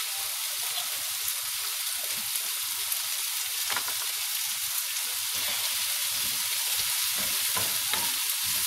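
Asparagus and onions sizzling steadily in a frying pan over a gas flame, with a few light clicks as a wooden spatula stirs them.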